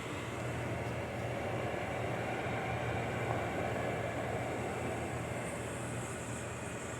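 GE over-the-range microwave oven's fan running steadily: an even rush of air over a low motor hum.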